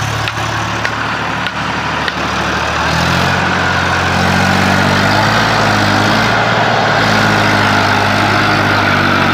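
Eicher 480 tractor's diesel engine running under load, pulling the tractor and its rotavator up a muddy bank. The engine note steps up in pitch and loudness about three seconds in and then holds high and steady.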